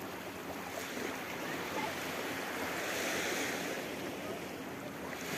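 Sea waves washing onto a sandy beach, the surge swelling about halfway through.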